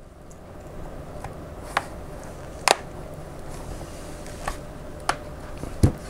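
Plastic snap-fit clips of an Asus Transformer TF300T tablet's back cover clicking loose as a plastic opening tool pries the case apart: several short, sharp clicks at uneven intervals, the loudest about halfway through.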